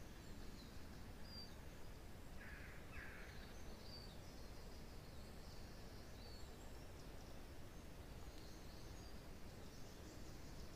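Faint woodland ambience: a steady low rush of wind in pine trees with small forest birds chirping high and thin now and then. About two and a half seconds in, two short, harsher bird calls come close together.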